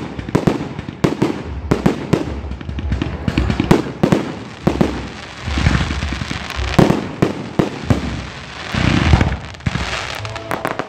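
Fireworks going off: rapid, irregular bangs of bursting charges with crackle between them, swelling louder about halfway through and again near the end.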